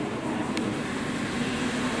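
New York City subway train standing at the platform with its doors closed, its equipment and ventilation giving a steady hum. A short click comes about half a second in.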